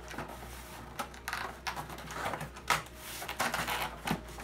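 Corrugated cardboard display pieces handled and fitted together by hand: a series of rustling scrapes and sharp taps, the loudest about three quarters of the way through.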